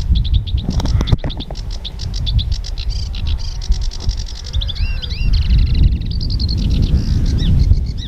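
A reedbed Acrocephalus warbler singing a rapid, chattering song of quickly repeated notes, with a few slurred, arching notes about five seconds in. Loud wind rumble on the microphone underneath.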